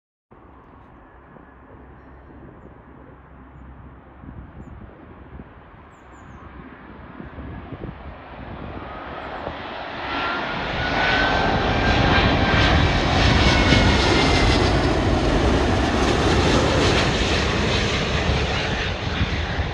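Airbus A350-1000 airliner's Rolls-Royce Trent XWB jet engines on final approach with gear down, the noise building from faint to loud as it passes low overhead. At its loudest a whine slides in pitch above the roar.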